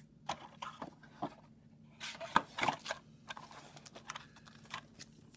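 Trading cards being handled: irregular light taps, flicks and rustles of the cards, the loudest a little past two seconds in.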